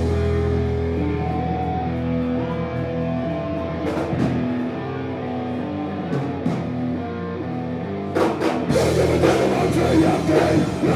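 Live rock band playing an instrumental passage: electric guitar and bass hold a riff with only occasional cymbal hits. About eight seconds in, the full drum kit comes in and the band gets louder.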